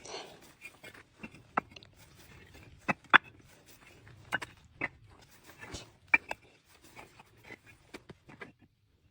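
Bricks knocking against each other as they are handled and stacked: an irregular series of sharp clinks and knocks, the loudest a little after three seconds in.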